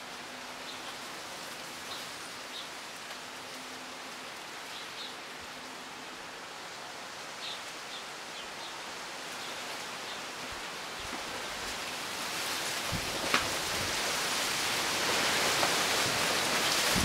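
Wind blowing through native bush foliage, palm fronds, tree ferns and bamboo, with a steady rustle that swells into a louder gust over the last few seconds. A few faint, brief bird chirps sound in the first half.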